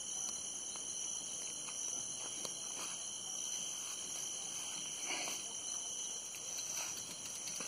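Steady high-pitched shrilling of an insect chorus, several unbroken tones held evenly throughout, with a few faint ticks and a brief soft rustle about five seconds in.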